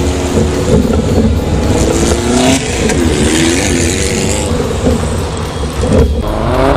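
Air-cooled VW Baja Bug flat-four engine revving up and down off-road, its pitch rising and falling several times. A loud rushing hiss comes in about two and a half seconds in and lasts about two seconds.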